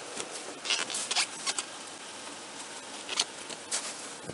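Short scattered rustles and clicks from a car door being opened and clothing moving against a body-worn camera microphone, over a faint steady hiss.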